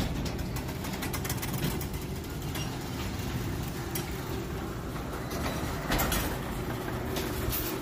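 Sectional garage door rolling up on its opener: a steady mechanical running noise with frequent clicks and rattles.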